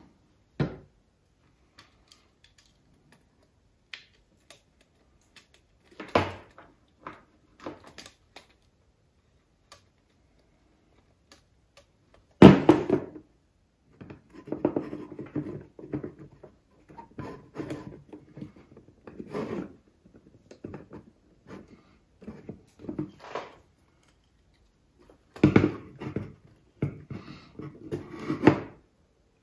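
Intermittent clicks, knocks and scraping as the metal detector's control knobs and housing parts are handled and fitted, with the loudest knock about twelve seconds in and busier stretches of rattling later.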